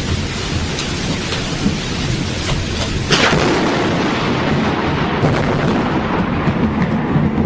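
Thunderstorm with steady rain and a low rumble of thunder. About three seconds in, a sharp thunderclap from a close lightning strike cracks and rolls on into a heavier rumble.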